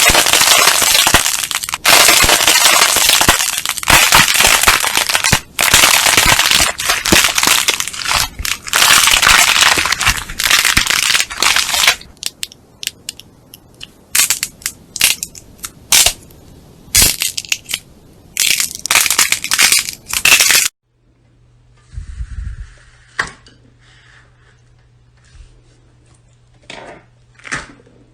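Crunchy slime being squeezed and pressed by hand, with dense crackling and popping that thins to scattered clicks after about twelve seconds. About three-quarters of the way through it gives way to a quiet stretch with a low steady hum and a few soft squishes.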